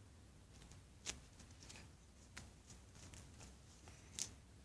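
Near silence with a few faint handling clicks and rustles as fingers squeeze a thin homemade foam squishy. The clearest clicks come about a second in and near the end.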